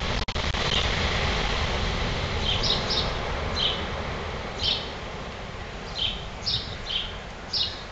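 Steady rush of ocean surf breaking on a sandy beach, with a small bird chirping over it: short, high chirps repeating every half second to a second from a few seconds in.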